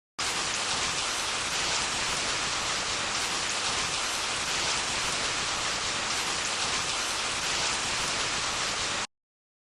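Stop Motion Studio rain sound effect: a steady, even patter of heavy rain that starts abruptly and cuts off sharply after about nine seconds.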